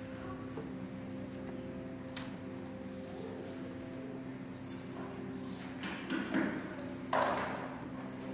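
Pipe or electronic church organ softly holding a chord under the room's reverberation. There is a single click about two seconds in, and a few brief knocks and rustles near the end.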